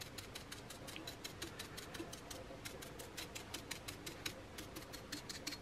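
A stippling brush dabbing acrylic paint onto a glass jar: a fast run of faint, soft taps, about seven a second.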